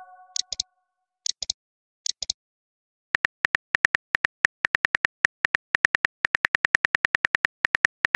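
Phone keyboard key-click sounds as a text message is typed: a few short double clicks, then from about three seconds in a fast, even run of clicks, about seven a second.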